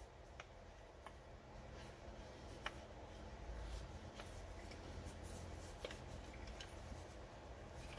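Faint, scattered small clicks and taps of a metal gravity-feed paint gun being handled while its fittings are worked loose by hand, over a low steady hum.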